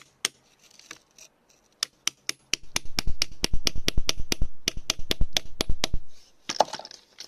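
A hand tool striking rock or soil in a quick regular run of sharp taps, about four a second, most with a dull thud under them, then a brief scrape near the end.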